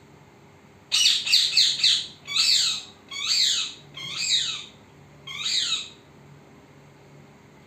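A parrot calling: a quick run of four short calls, then four longer calls that each sweep downward in pitch, about a second apart, ending about six seconds in.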